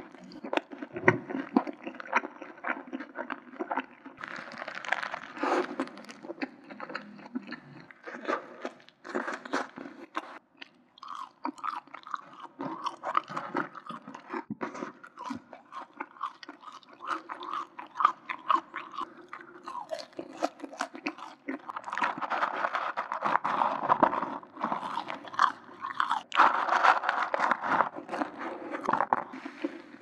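Close-miked chewing of McDonald's french fries, with many small, irregular crisp crunches.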